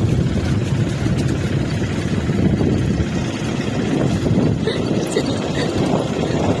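Crane's diesel engine running steadily with a low rumble.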